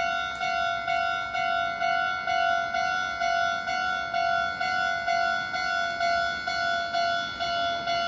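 Japanese railway level-crossing warning bell ringing, an electronic ding repeated a little over twice a second: the signal that a train is approaching the crossing.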